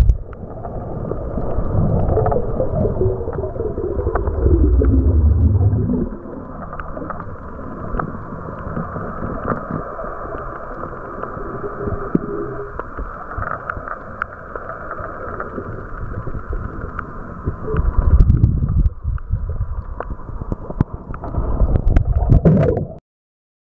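Underwater surge of shallow water under breaking waves: a muffled churning and gurgling with heavy rumbling surges in the first six seconds and again near the end, calmer in between. It cuts off just before the end.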